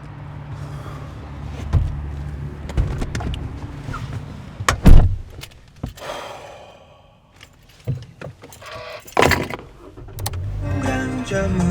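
Keys jangling over a steady low hum, with several clicks and thumps; the loudest thump comes about five seconds in.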